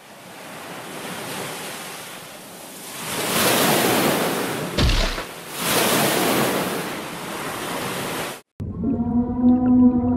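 Ocean and surf sound effects, rising to a loud rush of water twice as the sea monster breaks the surface, with a brief low thump between. The water noise cuts off near the end, and a low, held creature call with overtones takes over.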